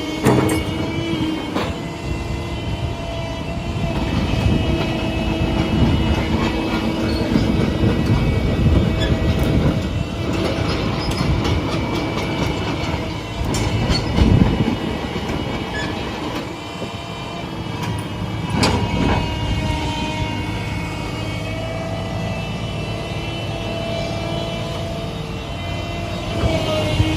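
Doosan 225LC-7 crawler excavator working, its diesel engine and hydraulics running with a steady whine, swelling and easing under load. Scattered sharp knocks and clanks come through now and then.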